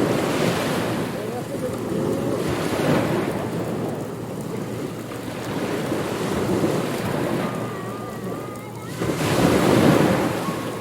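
Ocean waves surging and washing in, swelling and ebbing every few seconds, with the loudest surge about a second before the end. Faint wavering whistle-like tones sound over the surf early on and again in the last third.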